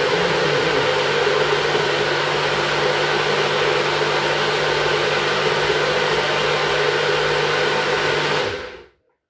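Enkho personal bullet blender's motor running at a steady high speed, blending milk and nuts into a thick drink. It is switched off and spins down about a second before the end.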